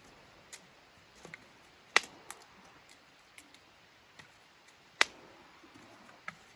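Metal frame of a folding camp chair clicking and snapping as it is handled and opened out, with two sharp, loud clicks about two and five seconds in and lighter ticks in between.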